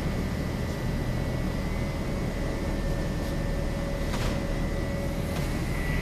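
Bag-loading belt conveyor running: a steady machine rumble with a constant high whine and a lower hum, and a faint knock or two.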